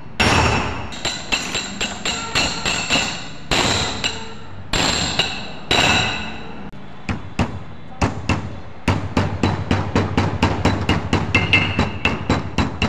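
Hammer blows on a steel drift and wheel bearing set in the hub of a cast-iron brake disc, the disc ringing after each strike. A few heavy, spaced blows with long rings, then a quick run of lighter blows, several a second, from about nine seconds in.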